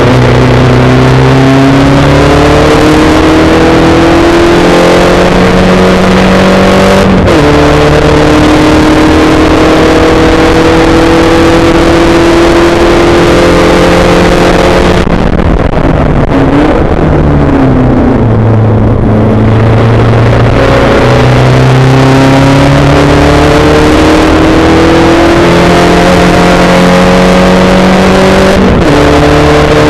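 Spec Racer Ford's 1.9-litre Ford four-cylinder engine at racing speed, heard from the open cockpit over a constant rush of noise. Revs climb and drop at an upshift about seven seconds in, climb again, then fall away midway as the throttle is lifted, before climbing once more to another upshift near the end.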